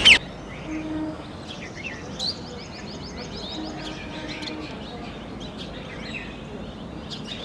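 Birds chirping and calling outdoors: many short, high calls, with a quick run of repeated notes about two to three seconds in.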